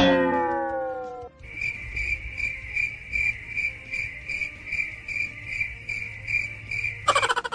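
Cricket-chirping sound effect: a steady high chirp pulsing about two and a half times a second. It is preceded by a loud note sliding down in pitch for about a second, and a loud burst with a fast rhythm cuts in near the end.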